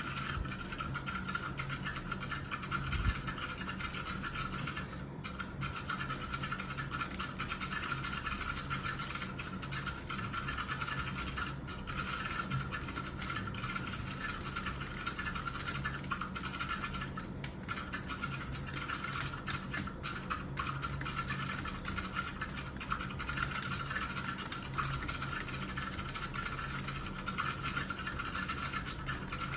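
Computer keyboard being typed on fast and continuously, a steady clatter of keystrokes broken by a few brief pauses.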